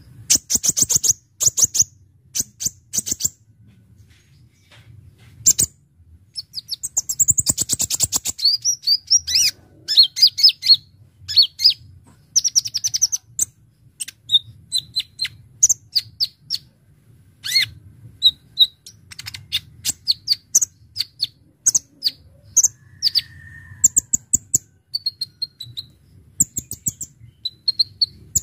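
Kolibri ninja sunbird singing energetically: sharp, high chattering notes and fast trills in quick bursts with short gaps, its song packed with fill phrases.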